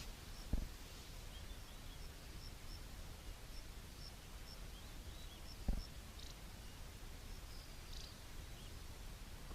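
Faint chirps of small birds repeating in the background, with two dull low thumps, one about half a second in and one a little before the six-second mark.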